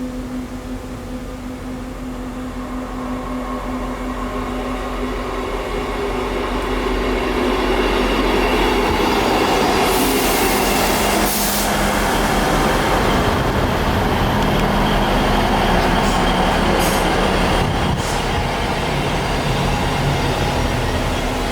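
Diesel passenger train running at the station, its engine hum growing louder over the first several seconds and then holding steady, with short bursts of high hiss or squeal about halfway through and again near the end.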